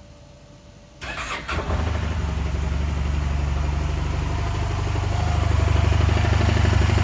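Honda Silver Wing 600 scooter's parallel-twin engine starting on the electric starter about a second in, then idling cold with a rhythmic knock: the noise the owner's auction sheet called a transmission noise, which persists with the variator removed and goes with radial play in the crankshaft.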